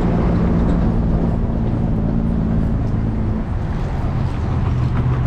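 A motor vehicle's engine running close by, its steady hum dropping in pitch about three seconds in, under a loud, even rushing noise.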